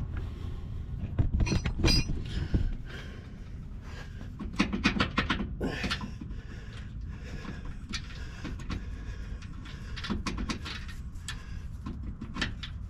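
Irregular metal clinks and knocks, in clusters, as the stock track bar and its mounting bolt are worked loose by hand from the frame bracket of a Jeep Gladiator.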